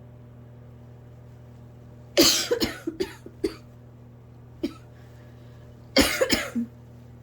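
A person in an asthma coughing fit: a quick run of about five coughs, one lone cough, then another quick run of three or four coughs near the end.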